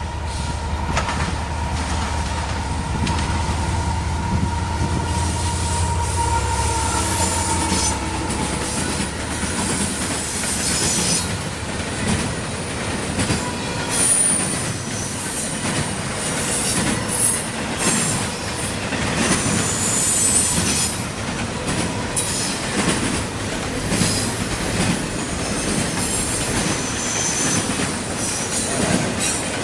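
CSX intermodal freight train passing. A low diesel locomotive rumble lasts for about the first eight seconds, then the cars roll by with wheels clacking over the rails and high-pitched wheel screeching coming and going.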